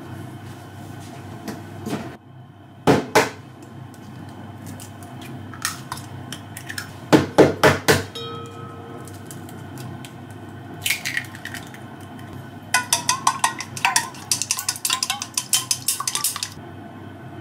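Knocks on a stainless steel bowl as eggs are cracked, a cluster of sharp strikes in the middle. Near the end, wooden chopsticks beat the eggs in the bowl, a fast run of clicks against the steel.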